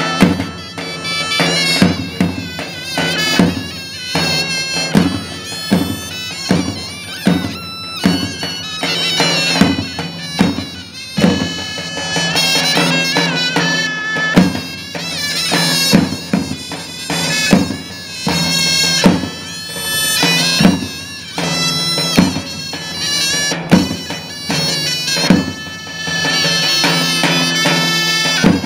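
Two zurnas playing a zeybek melody over two davul drums, the drums striking heavy beats in a slow, uneven rhythm.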